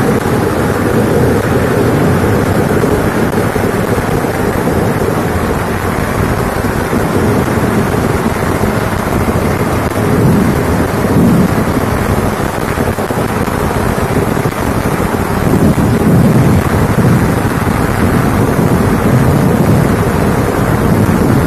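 A continuous barrage of ground-fired firecrackers going off in very rapid succession, the bangs running together into one steady, loud rumble that swells at times.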